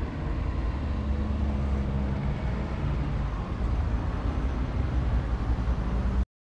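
Road traffic going by on a busy street: a steady low rumble of vehicles. It cuts off suddenly near the end.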